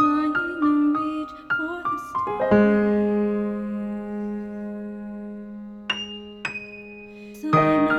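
Gentle piano music, lullaby-like: a few melody notes, then a long held chord that slowly fades, with two high notes near the end.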